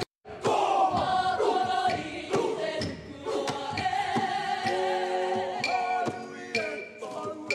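A kapa haka group of many voices singing a Māori poi song together, with long held notes in the middle. The sound cuts out completely for a moment right at the start.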